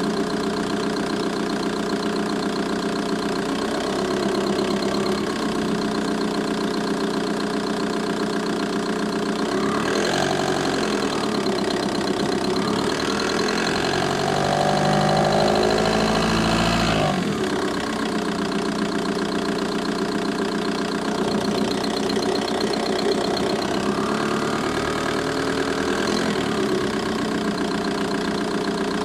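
VW Bora 1.9 TDI four-cylinder diesel engine idling with a ticking noise from the engine bay. The engine note changes for a few seconds from about ten seconds in, then settles back.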